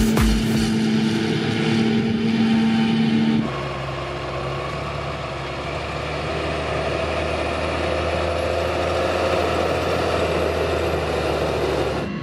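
A music track ends on a held chord about three seconds in. Then a Fendt 939 Vario tractor's engine runs steadily.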